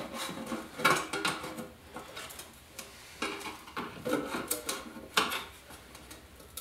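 Metal can of two-part glazing putty being worked with a small metal tool: a series of clinks and scrapes, with a short metallic ring to some of them.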